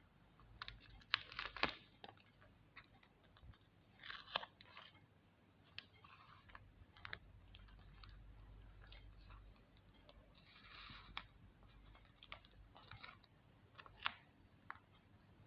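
Paper crinkling and rustling in a few short bursts, with scattered light taps and clicks as craft materials are handled.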